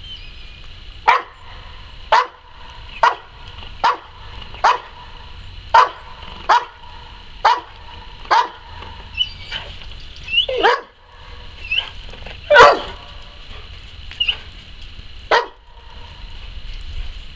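A dog barking repeatedly for a ball to be thrown, about one sharp bark a second. There are a few higher yips between the barks in the middle, and the loudest bark comes about two-thirds of the way through.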